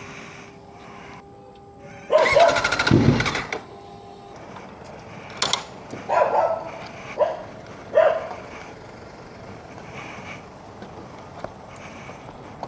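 Kawasaki ZX-4RR's starter cranking the inline-four engine in a rapid pulsing whirr for about a second and a half without it catching: the bike that died mid-ride will not restart, with its oil pressure warning showing. A dog barks several times afterwards.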